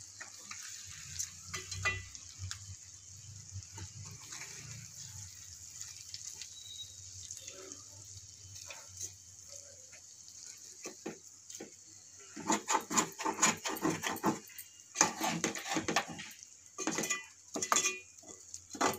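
A metal spoon scrapes and clinks against an aluminium pot while fish pieces are turned in hot oil. The scraping comes in busy clusters over the last six seconds or so, above a steady sizzle of frying oil.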